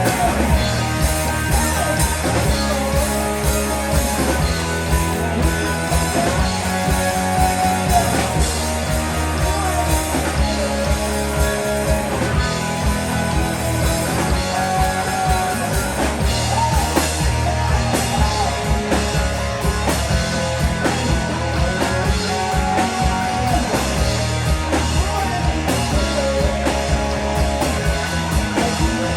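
Rock band music with electric guitar and a steady beat.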